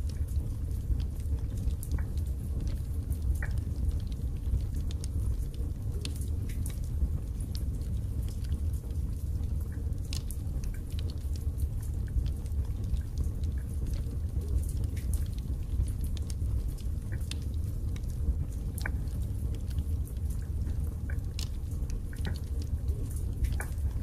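Wood fire burning in a fireplace: a steady low rumble of flames with frequent small crackles and pops from the burning split logs.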